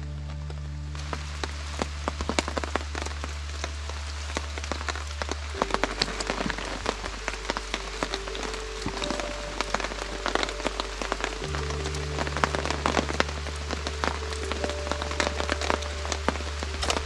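Steady rain with many distinct drops spattering on a surface. Soft background music of low held notes plays under it, the chord changing twice.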